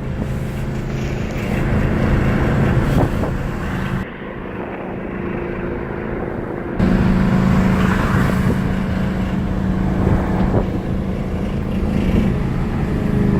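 Ford Crown Victoria Police Interceptor's 4.6-litre V8 pulling hard under throttle, heard from the cabin. The engine is misfiring, and the automatic transmission is nearly out of fluid and struggling to shift up into third. The engine note drops for a few seconds about four seconds in, then comes back louder.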